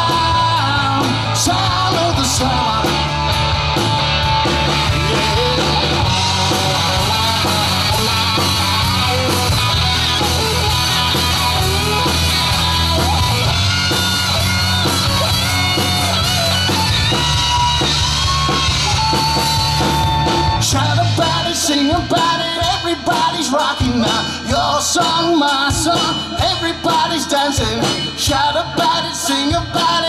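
Live rock band playing: electric guitar lead over drums and held bass notes for the first two-thirds, then the band switches to a choppier, stop-start beat with a male lead vocal.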